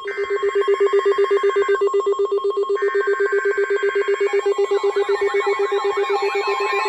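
Weather alert radios going off for a winter storm warning: a fast-pulsing beep tone under a steady higher tone, with two higher data-burst screeches of the alert header. A warbling siren alarm joins about two-thirds of the way in.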